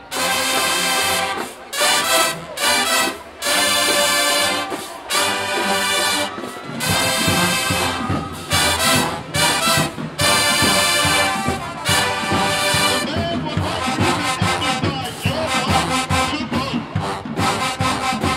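HBCU show-style marching band playing loud brass chords, in punchy phrases broken by short breaks for the first several seconds, then running on more steadily with percussion beneath.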